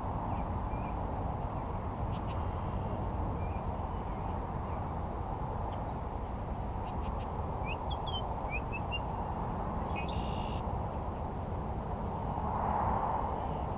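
Steady low rushing outdoor noise, with a few faint bird chirps scattered through the middle and a brief swell in the noise near the end.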